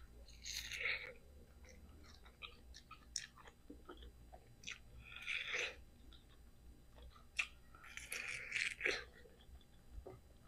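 A ripe mango being bitten and chewed: three louder bites, about half a second in, midway and near the end, with quieter chewing and mouth clicks between.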